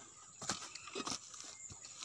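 A few short clicks and rustles, roughly half a second apart, from a plastic bottle of gear oil being handled, over a steady high-pitched buzz of insects.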